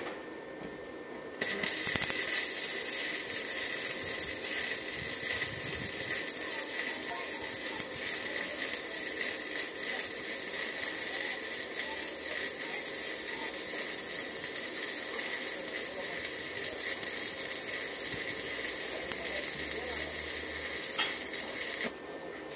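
Stick (shielded metal arc) welding on steel: the electrode's arc gives a steady, dense crackling that starts suddenly about a second and a half in and cuts off abruptly just before the end, when the arc is broken.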